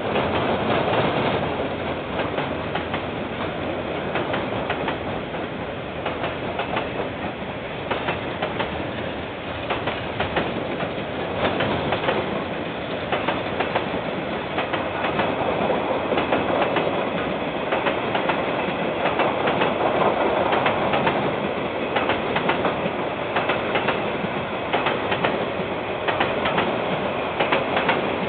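KiwiRail train wagons rolling steadily across a bridge, with a continuous rumble and the wheels clicking over the rail joints, heard through a security camera's microphone.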